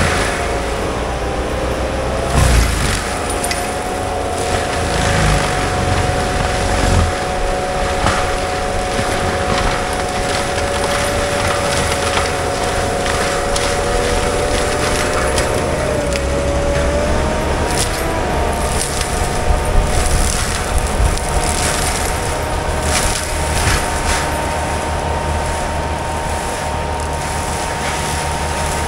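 Compact track loader running a forestry mulcher head: a steady engine rumble under a high whine from the spinning mulcher drum, which steps up in pitch a bit past halfway, with occasional knocks as the drum chews through brush and wood.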